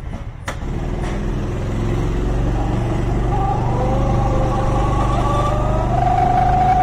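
Go-kart engine heard from the driver's seat as the kart pulls away and accelerates, getting louder about a second in, its note climbing and then holding steady near the end. A single sharp click about half a second in.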